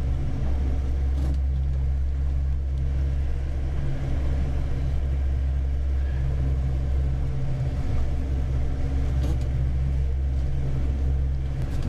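Boat engine running steadily under way, a constant low drone heard from inside the small boat's pilothouse cabin.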